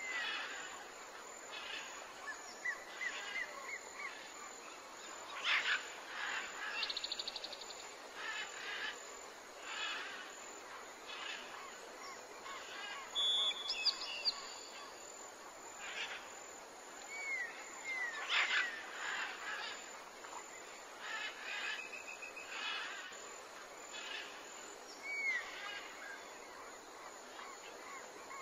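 Birds calling: scattered short chirps and whistles throughout, with a quick trill about seven seconds in.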